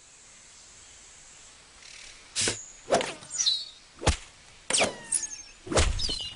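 Cartoon sound effects: after about two quiet seconds, five sharp knocks come at uneven intervals of roughly half a second to a second, with short high squeaky chirps falling in pitch between them, like small insect voices.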